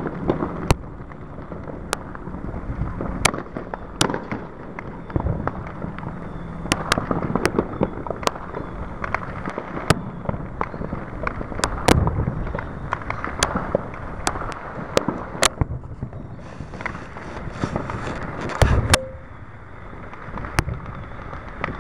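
Fireworks going off: many sharp bangs and cracks at irregular intervals, with a heavier low boom about twelve seconds in and another near the end. A stretch of hiss runs for a couple of seconds before that last boom.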